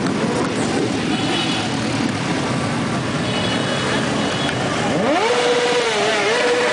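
Motorcycle engines running in slow procession over a steady rush of engine and wind noise; about five seconds in, a motorcycle revs up sharply and holds high revs.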